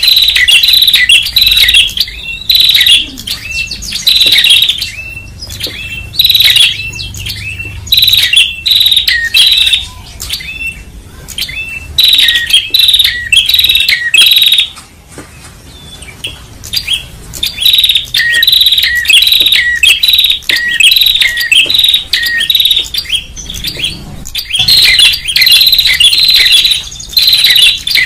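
Tailorbird lure recording: loud, rapid bursts of sharp, high chirping notes, repeated every second or two, with a brief lull about halfway through.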